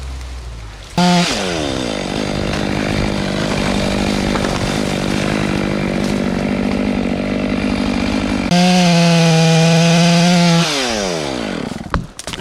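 Two-stroke chainsaw revved up about a second in, then bogging down and running steadily under load as it cuts through wood. Past the middle the engine jumps to full screaming revs as the chain runs free, then the throttle is let off and the pitch falls away toward idle near the end.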